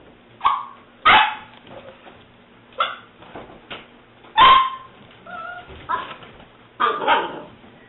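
Seven-week-old English springer spaniel puppy barking: about six short, high yips spread over several seconds, with a brief whine about five seconds in.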